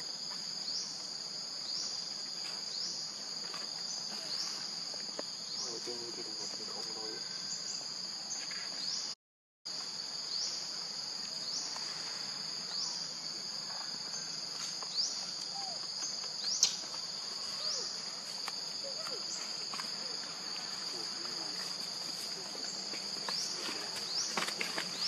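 Insects buzzing in a steady high drone, with a short rising chirp repeated about once a second. The sound cuts out for half a second near the middle.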